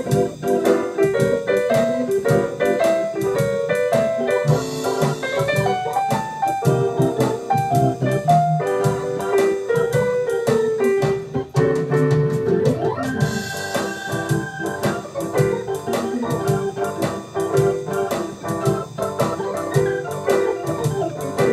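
Two keyboards jamming a blues in G: busy piano-sound runs and chords over sustained organ chords.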